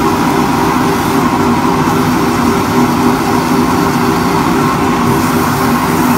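Wood lathe running steadily with a constant motor hum while a spinning purpleheart grip is hand-sanded.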